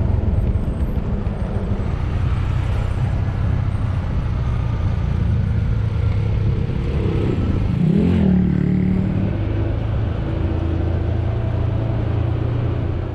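Honda CB150X's single-cylinder engine running under way, heard from on board with steady wind and road noise. A brief rising tone comes about eight seconds in.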